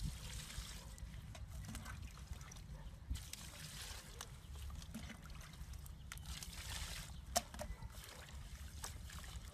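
Water poured from a small cup into a plastic basin and sloshed by hands washing green stalks, coming in several short spells of trickling and splashing. A steady low rumble sits underneath, and a sharp tap stands out about seven seconds in.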